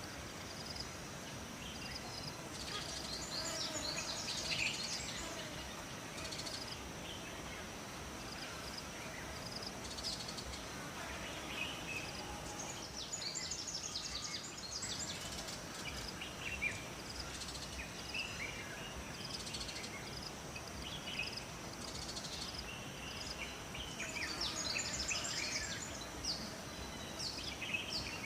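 Forest ambience: songbirds chirping and trilling in repeated bursts, loudest a few seconds in, in the middle and near the end, over a steady high-pitched insect drone and a soft, even background hiss.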